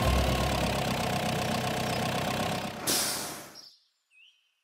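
Cartoon truck engine sound effect, a steady rumble as the water truck drives in. It ends about three seconds in with a short hiss that fades away, and then all goes quiet except for a few faint chirps.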